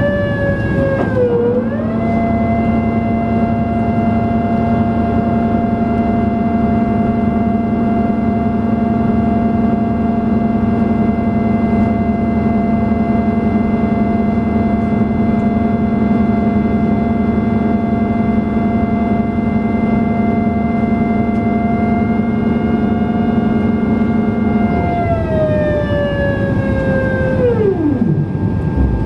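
Boeing 767-300 cabin noise while taxiing: steady whines and a hum from the aircraft's engines and systems over a rushing noise. About four seconds before the end the hum stops, and the main whine slides steeply down in pitch and dies away.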